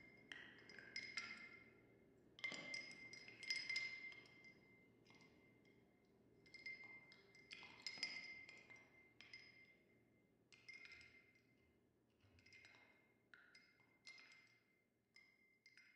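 Ice cubes clinking against a glass: faint, irregular clinks, each with a short glassy ring, growing sparser toward the end.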